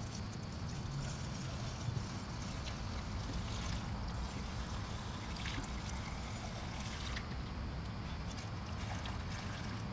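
Liquid trickling steadily from a plastic jug through a funnel into a lawnmower's filler, with a few faint light ticks.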